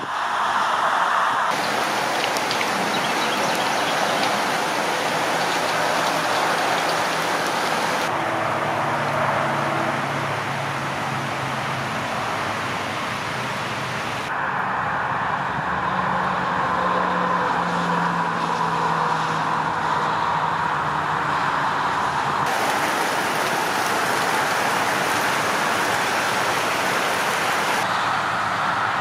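Steady hiss of rain and passing highway traffic, with tyres on wet road. The sound shifts abruptly several times, at each change of shot.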